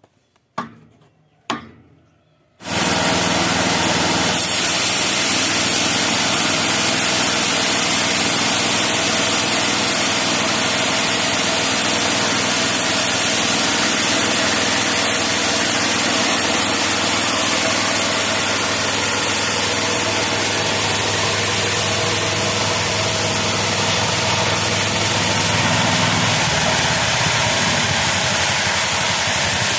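Homemade bandsaw mill driven by a 16 HP engine, running loud and steady. It cuts in suddenly about two and a half seconds in, after two short knocks in near quiet.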